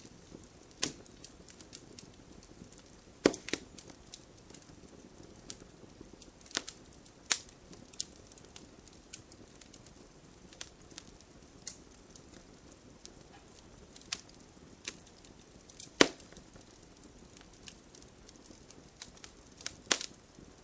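Wood fire crackling, with irregular small pops and a few louder sharp snaps, over a faint steady hiss of rain.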